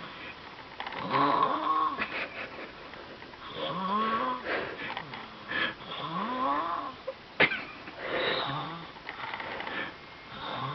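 Sleeping baby snoring: pitched snores that rise and fall in tone, about one every two and a half seconds. A single sharp click about seven and a half seconds in.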